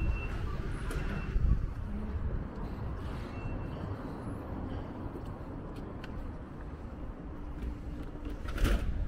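Outdoor street ambience: a steady low rumble of traffic, with a short, louder knock just before the end.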